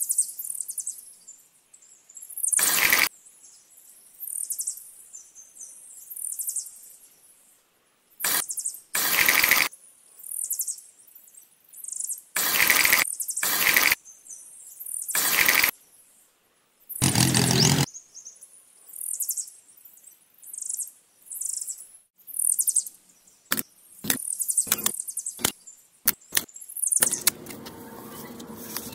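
A small mason's trowel scraping and spreading wet cement mortar over a wire-mesh deck, in short strokes every one to three seconds. Quicker, sharper clicks come in the last few seconds.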